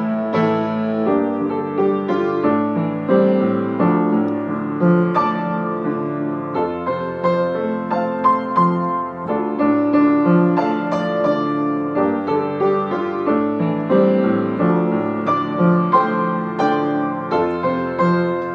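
Piano playing a song accompaniment, chords with a melody over them, with no singing.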